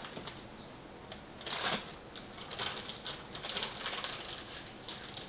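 Kitchen handling sounds: scattered light clicks and rustling of a plastic bag as ingredients are handled on a wooden cutting board, with one louder rustle about a second and a half in.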